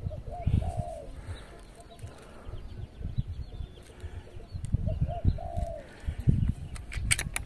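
A dove cooing: a short phrase of a few rising-and-falling notes about half a second in, repeated about five seconds in, over a low rumble. A few sharp clicks near the end.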